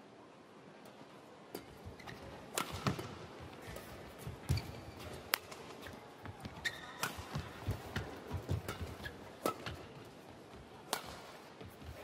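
Badminton rally: sharp cracks of rackets hitting the shuttlecock a second or two apart, with the players' shoes thudding on the court floor.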